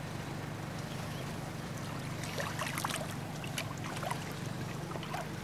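Water splashing and trickling lightly at the side of a fishing boat as a large northern pike is released by hand, with a cluster of small splashes and drips about two to four seconds in, over a steady low hum.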